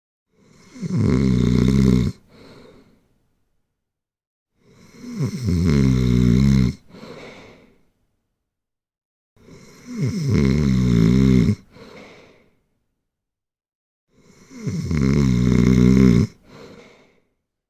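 Snoring: four long snores, one about every four and a half seconds. Each is pitched, drops in pitch at its start, cuts off sharply after about a second and a half, and is followed by a short, softer breath.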